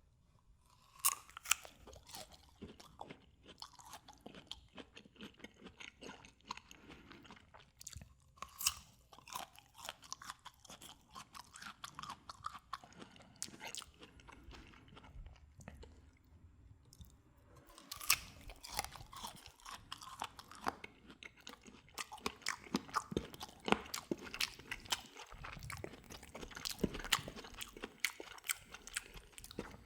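A person biting into and chewing a guava close to the microphone, with crisp bites and wet crunching chews, a few louder bites standing out.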